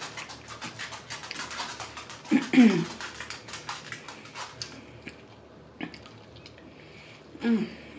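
Close-miked chewing of food, with rapid wet mouth clicks for the first four or five seconds. Two short vocal sounds falling in pitch cut in, the louder about two and a half seconds in and another near the end.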